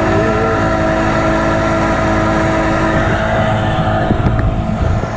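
Tiller-steered outboard motor running steadily at cruising speed, pushing a small skiff along, its engine tone holding level.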